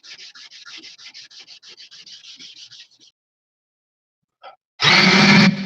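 A hand sanding block scraping back and forth over a motorcycle helmet's clear coat in quick, even strokes, about five a second, which stops after about three seconds. Near the end an electric sander starts up loudly with a steady hum.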